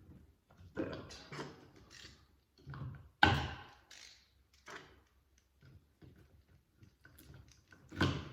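Outer plastic sheath of an electrical cable being cut and pulled off by hand: a run of scraping, tearing noises, the sharpest and loudest about three seconds in, another near the end.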